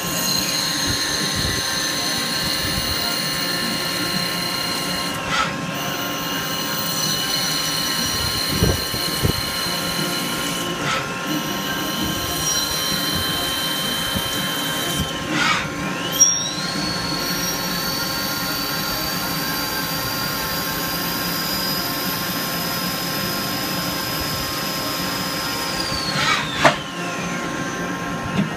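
Hardinge T-42 CNC lathe running a machining cycle: a steady whine that dips briefly and comes back three times in the first half, then climbs to a higher pitch about sixteen seconds in, holds, and glides down near the end, over a constant machine hum.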